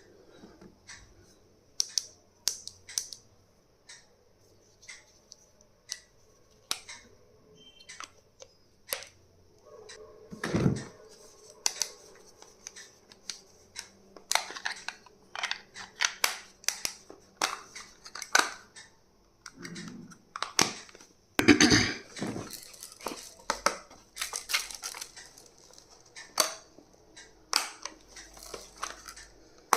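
Small stationery items and their packaging being handled at close range: irregular clicks, taps and crinkling rustles. They come more often in the second half, with louder rustles about ten seconds in and again about two-thirds of the way through.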